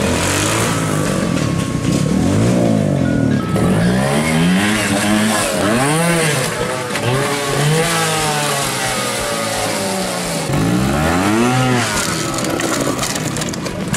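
Trials motorcycle engines revving in repeated short blips, the pitch rising and falling sharply several times, with rougher steady running between.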